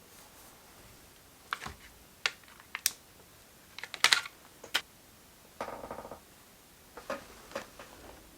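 Scattered key presses and clicks on a MacBook Pro M2 laptop keyboard during setup, about eight separate clicks. A short buzzy tone lasting about half a second comes a little past halfway.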